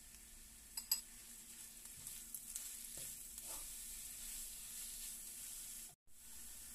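Grated jicama, chives and garlic sizzling in oil in a frying pan while a wooden spatula stirs and scrapes them, with a couple of sharp spatula knocks about a second in. The sound drops out briefly near the end.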